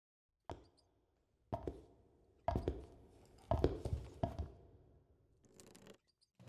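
Slow footsteps, about one step a second, growing louder as they approach.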